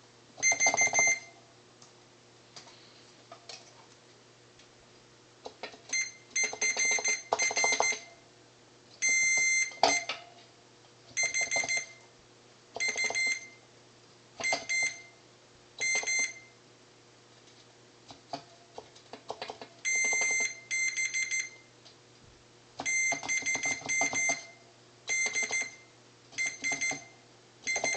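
A multimeter's continuity beeper sounds a high, steady beep each time a key on a Moog MG-1 keybed is pressed and its contact closes. There are about a dozen short beeps at irregular spacing, and each beep shows that the key's contact is working.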